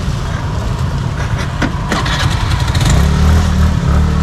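Motorbike engine running close by, getting louder and steadier about three seconds in, with a couple of sharp clicks shortly before.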